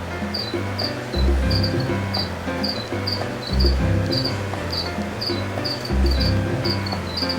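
Background music with a repeating bass line and chords, over a steady high chirping like a cricket, about two chirps a second.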